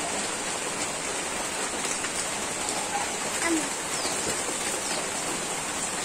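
Steady rain falling on the ground and wet surfaces: an even, dense hiss with scattered drip splashes.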